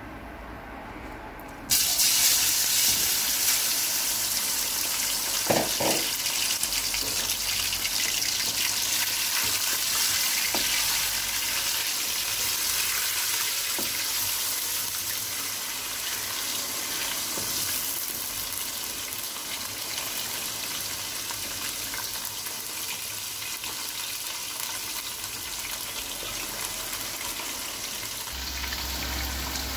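Raw chicken pieces sizzling in hot oil in a steel karahi. The sizzle starts abruptly about two seconds in as the chicken hits the oil, then slowly dies down as the pieces are turned.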